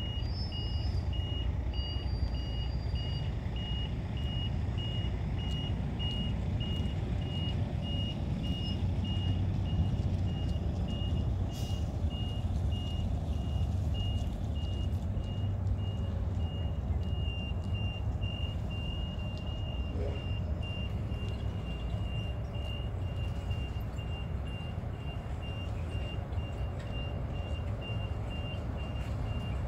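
A vehicle's reversing alarm beeping at one high pitch in a steady, even rhythm, over a steady low rumble.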